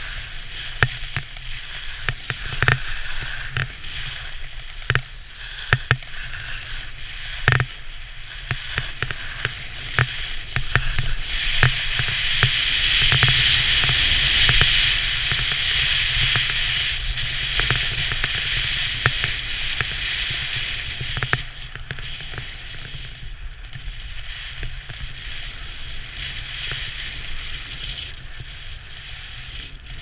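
Edges sliding and scraping on hard-packed snow during a run down a ski slope, heard through an action camera, with a low wind rumble and scattered sharp knocks as the camera is jolted. The scraping hiss swells louder for several seconds in the middle, then eases off.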